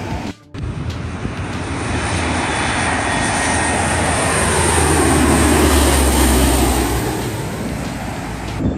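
Four-engine turboprop military transport, a C-130 Hercules type, flying low overhead on approach: its engine sound builds to a peak a little past the middle with a sweeping whoosh as it passes, then eases off.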